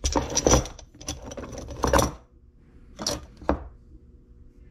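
Empty .50 BMG brass cartridge cases in black links clinking and clattering against each other and the wooden workbench as they are handled and set down, in three bursts.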